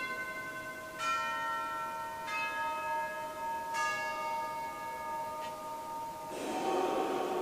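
Consecration bells struck about four times, roughly a second apart, each strike ringing on in several tones while the chalice is elevated, the last one fainter. Near the end a short burst of rustling comes in.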